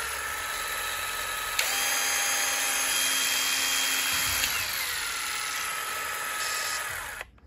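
Bosch GDR 120-LI 12 V cordless impact driver running free with no load, its motor whine shifting with the variable-speed trigger. It jumps up to a higher speed with a click about a second and a half in, glides down to a slower speed a few seconds later, then stops just before the end.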